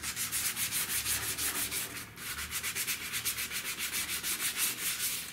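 220-grit sandpaper rubbed by hand in quick back-and-forth strokes over super-glue-and-baking-soda filler on a cracked plastic dash pad, smoothing the hardened repair, with a short pause about two seconds in.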